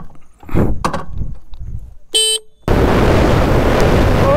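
A brief vehicle horn toot, then from about two and a half seconds in, an abrupt switch to loud, steady wind rush on the microphone of a moving motorcycle.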